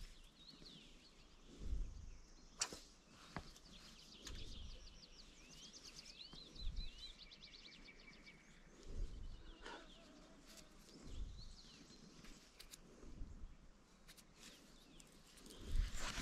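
Songbirds chirping, with a run of quick falling notes in the middle, over faint outdoor background; occasional low thumps and rustles and a couple of sharp clicks close by.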